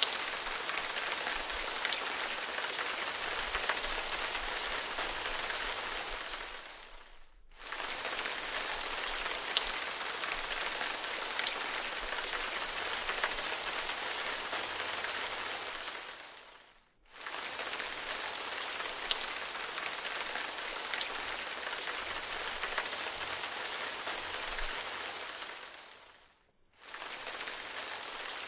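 Steady rain pattering, an even hiss dotted with small drop ticks, cutting out briefly three times and coming straight back.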